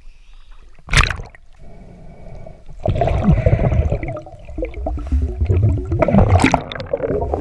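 A sharp splash about a second in as the camera goes under the surface, then muffled underwater rumbling and gurgling heard through the submerged action camera.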